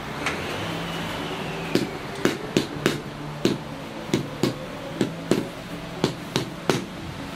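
A rubber mallet tapping a paving slab down into its bed of mortar: a run of sharp taps, about two a second and unevenly spaced, starting about two seconds in.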